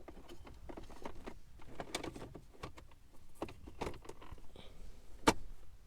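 Hands working a wiring cable and plastic dash parts loose to free something that won't open all the way: irregular clicks and rattles, with one sharp loud click about five seconds in.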